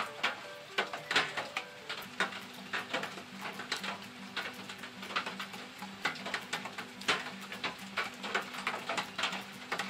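Rain falling, with close drips tapping at irregular intervals, several a second, over a soft hiss of rain. Faint steady low notes run underneath.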